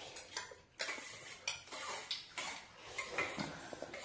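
Spoons clinking and scraping irregularly against stainless steel plates while people eat noodles.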